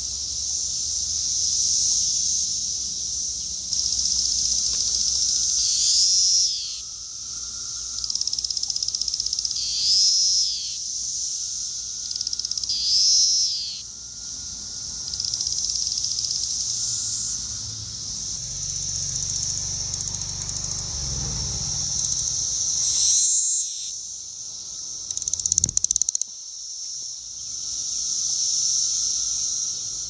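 Brood X periodical cicadas chorusing: a steady high-pitched drone, with nearby calls swelling and falling away about every three to four seconds in the first half. A brief burst of clicks comes near the end.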